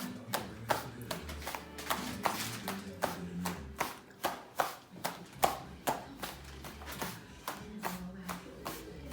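Background music with a steady clapping beat over a bass line.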